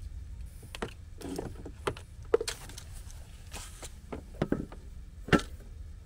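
Handling noises as a one-pound propane cylinder is threaded onto a brass adapter fitting: a string of short clicks, knocks and scrapes, about five sharp ones, over a low steady rumble.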